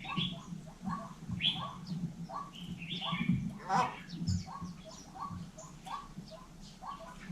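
Hill myna calling: short notes repeated about twice a second, with louder, higher squawks and whistles breaking in now and then.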